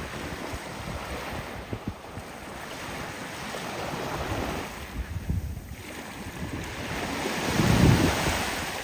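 Waves washing onto a beach, with wind rumbling on the microphone. The sound swells and eases, loudest near the end.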